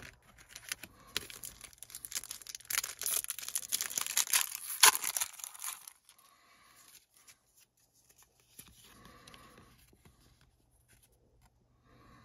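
Foil wrapper of a Magic: The Gathering booster pack crinkling and being torn open, with the loudest rip about five seconds in. After that comes softer rustling as the cards are handled.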